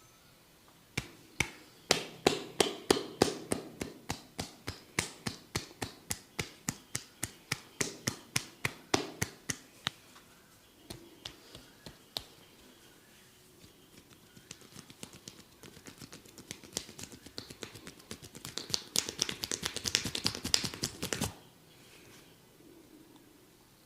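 Barber's hands tapping on a person's head during a head massage: crisp taps about three a second, a short spell of scattered taps, then a faster, denser patter that builds and stops suddenly near the end.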